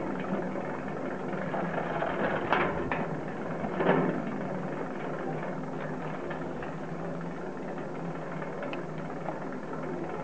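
Ski lift bullwheel and haul cable running with a steady mechanical hum. Two louder sounds come about two and a half and four seconds in; the second falls in pitch.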